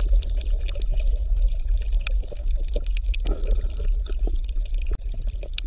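Underwater ambience of a coral reef: a steady low rumble of water with many scattered crackling clicks. The sound drops out for an instant about five seconds in.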